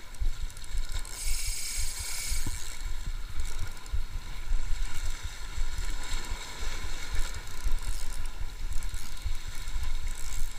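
Shimano Stradic 1000HG spinning reel being cranked to retrieve a micro jig: a steady whir from the reel's gears, over a low, uneven rumble.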